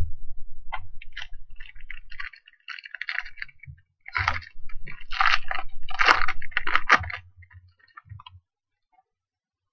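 Foil trading-card pack wrapper being torn open and crinkled by hand: a run of irregular crackling rustles with small clicks. It grows louder from about four to seven seconds in, then fades out.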